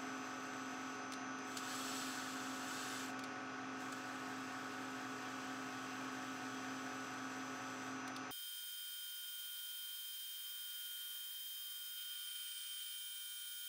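Metal lathe running steadily while turning a small steel taper pin, a quiet hum made of several held tones, with a short hiss of cutting about two seconds in. The low hum drops out abruptly about eight seconds in, leaving a thinner high hum.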